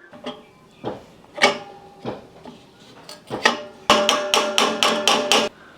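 A hammer striking metal: a few separate ringing blows, then a quick run of about eight blows lasting a second and a half.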